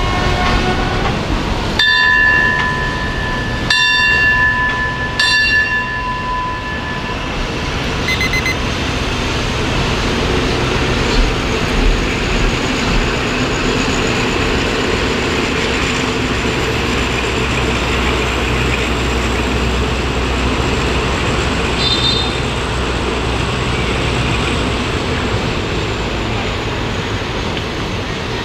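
Passenger train pulling out of the station: a horn sounds three times in the first few seconds, each blast lasting a couple of seconds, then the carriages roll past with a steady rumble and a faint high whine that dies away near the end.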